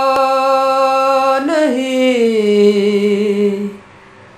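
A man singing a ghazal unaccompanied, holding one long note that slides down in pitch about a second and a half in and settles lower. The voice stops about a second before the end.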